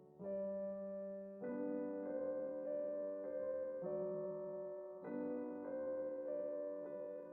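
Background piano music, soft sustained chords changing every second or so.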